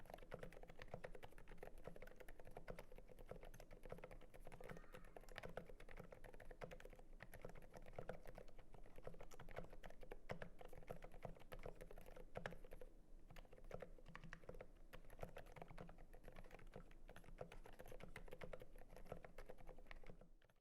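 Quiet, continuous fast typing on a GMMK Pro mechanical keyboard with lubed Zilents silent linear switches (Zealios housings with Cherry Silent Red stems), an FR4 plate and PBT keycaps: a dense stream of soft keystrokes that stops just before the end.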